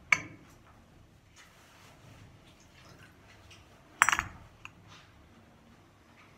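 Glass cruet and gilded metal chalice clinking as they are handled during the purification of the vessels after Communion. There is a sharp clink just after the start and a short run of clinks with brief ringing about four seconds in.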